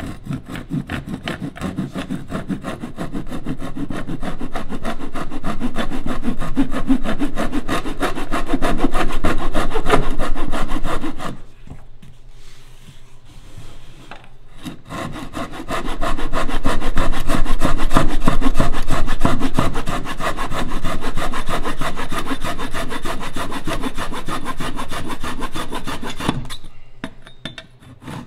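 Japanese pull saw with a 240 mm pipe-saw blade cutting through wood in quick, steady strokes. It pauses for about three seconds midway, then stops shortly before the end.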